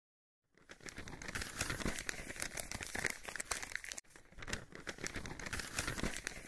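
Paper crinkling and rustling sound effect of a parchment scroll rolling up and unrolling, a dense crackle of fine clicks that starts about half a second in and breaks off briefly about four seconds in.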